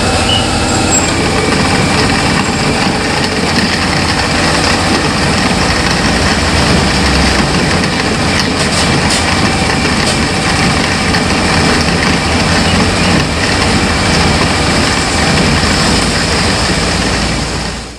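Panasonic countertop blender motor running steadily, grinding a spice paste with a little water and oil; the sound cuts off abruptly near the end.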